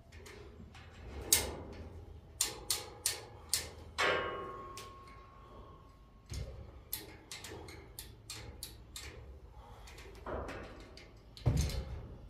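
Irregular sharp metallic clanks and clicks from a chain hoist's chain and the steel pallet racking as a rack upright is being raised. One clank about four seconds in rings on for about a second.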